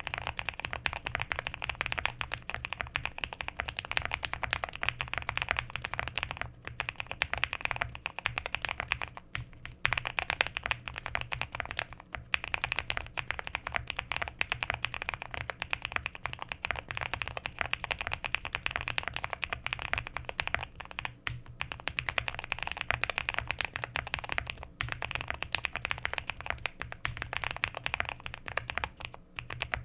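Continuous typing on a QK65 65% mechanical keyboard with linear frankenswitches (Nixdork top, Boba LT stem, Lilac bottom), a POM plate, full foam and PBT keycaps. A dense run of keystrokes, broken by short pauses every few seconds.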